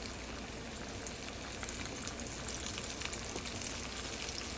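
Hot cooking oil sizzling and crackling steadily in a frying pot, a constant hiss with scattered small pops.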